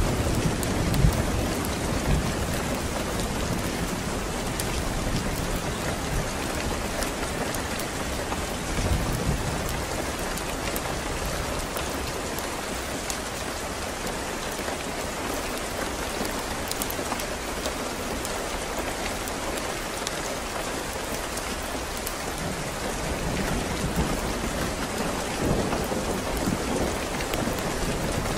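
Steady rain falling, with low rolls of thunder: one dying away at the start, a short one about a third of the way in, and a longer one building near the end.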